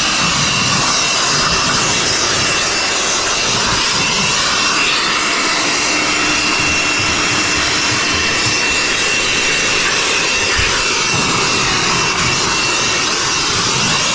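Handheld air blower running steadily, a loud rush of air with a thin high whine over it, blowing drill dust off the roof flashing and brickwork to clear it before sealant goes on.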